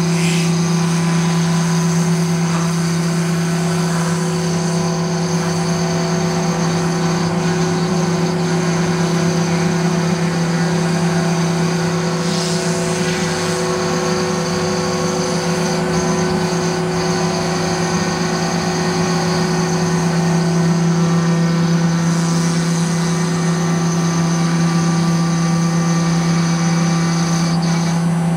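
CNC router's spindle running steadily as the bit cuts a door-panel outline into a wood sheet: a steady hum with high overtones over the hiss of the cut, with a couple of brief brighter swells partway through.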